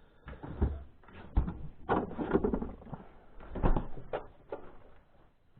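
Irregular knocks, clatter and rustling of kitchen containers and utensils being handled while milk is measured out.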